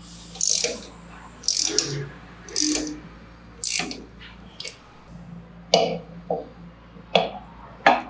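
Ratcheting ring spanner clicking on a nut as it is tightened, in short bursts about once a second with each swing of the handle.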